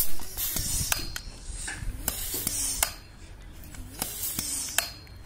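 A high-pressure PCP hand pump being worked in strokes about two seconds apart, each a rush of air with sharp metallic clicks from the brass quick connector and fill probe. The PX50 pistol's air cylinder is not taking the air, which the owner blames on the cylinder not receiving air properly.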